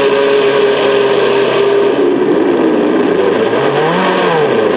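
Electric RC car's engine-sound simulator playing a steady engine note through its speakers, then revving up and down with the throttle about three seconds in.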